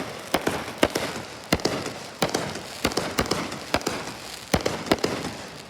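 Fireworks going off: a dozen or so sharp pops and bangs, irregularly spaced about half a second apart, over a steady crackle that thins out near the end.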